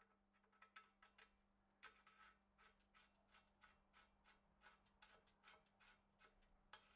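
Faint, irregular light clicks, a few a second, as a bottom bracket cup is turned by gloved hands into the threaded shell of a steel bicycle frame. A low steady hum lies underneath.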